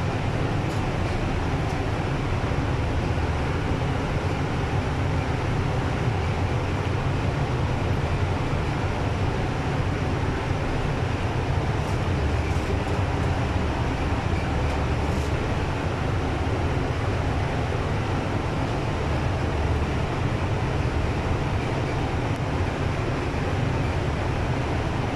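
Steady low mechanical drone with a continuous rushing hiss, unchanging throughout.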